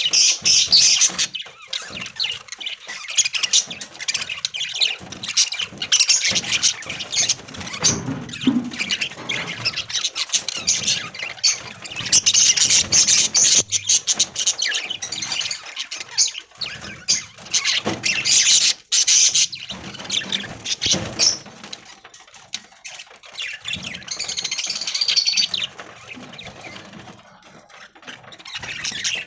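A flock of budgerigars chattering and chirping, many high calls overlapping without pause, thinning out near the end.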